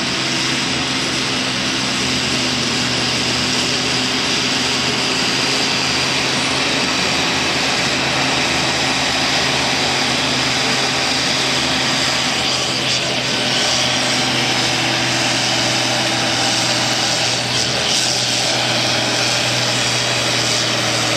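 John Deere 4440's turbocharged six-cylinder diesel running hard under load as the tractor drags a weight-transfer pulling sled. It is a loud, steady engine drone with no let-up.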